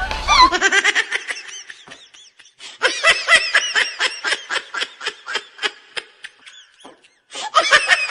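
A person laughing in quick repeated bursts, breaking off briefly about seven seconds in and then starting again.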